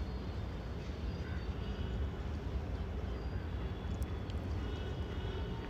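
Steady low background rumble, with a single faint click about four seconds in.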